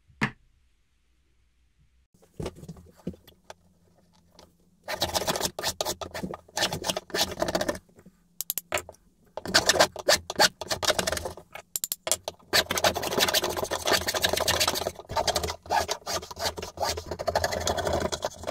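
A sharp knock at the very start, then a wooden hand router plane's iron scraping and shaving a groove in hardwood. It works in rapid, repeated short strokes, in runs of a second or more with brief pauses, and gets busier from about five seconds in.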